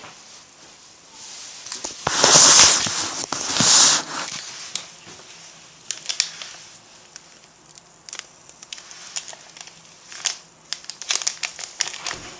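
Plastic food packaging crinkling and rustling. It is loudest in two bursts about two and four seconds in, followed by scattered small clicks and knocks as food is handled.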